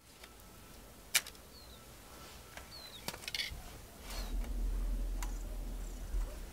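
Thin stainless steel wire being handled at a bench vise: scattered light clicks and ticks, one sharp click about a second in. About four seconds in a low rumble begins as the wire is drawn through a wooden block.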